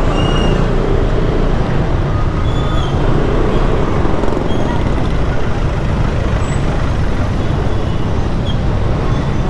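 Steady traffic noise heard from a Kymco Xciting S400i maxi-scooter riding slowly in congested city traffic: the scooter's engine and the vehicles around it, as an even low rumble with a few faint, short high squeaks.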